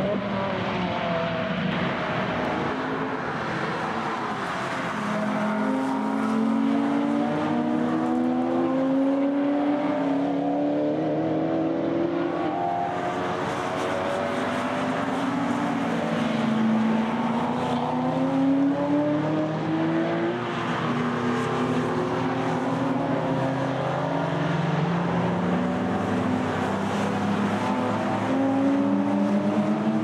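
Several high-performance sports and race cars lapping a circuit, their engines revving hard through the gears. The engine notes climb in pitch and drop back again and again, with more than one car heard at once.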